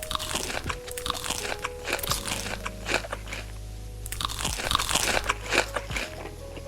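Crunchy food being bitten and chewed close to the microphone: a run of sharp crunches, a short pause, then a second run before the end.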